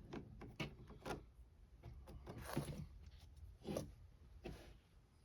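Scattered light clicks and knocks, about six spread a second or so apart, with a short scraping sound near the middle: small hand tools and screws being handled while a screw is refitted in a camper window frame.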